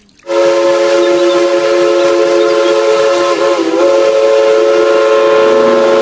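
Steam locomotive whistle blowing one long, loud blast, a chord of several notes held steady, with a brief dip in pitch about halfway through.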